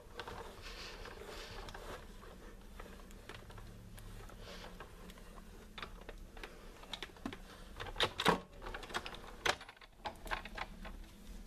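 Sizzix die-cutting machine pressing a sandwich of cutting plates and a thin die through its rollers: a faint steady grinding with scattered clicks and creaks, the loudest about eight seconds in.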